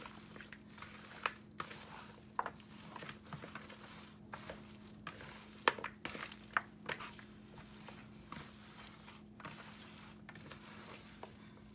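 Hands in plastic gloves mixing seasoned mutton pieces in a glass bowl: soft irregular squishing and crinkling of the gloves, with scattered sharp clicks as pieces and hands knock the bowl.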